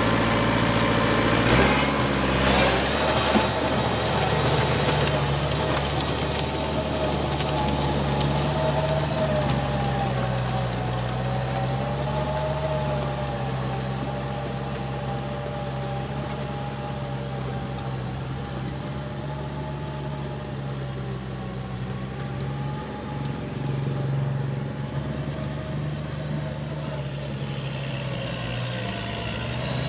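Diesel engine of a four-wheel tractor running steadily as it pulls a rotary tiller through a flooded paddy, with a wavering whine over the engine hum, slowly growing fainter as the tractor moves away.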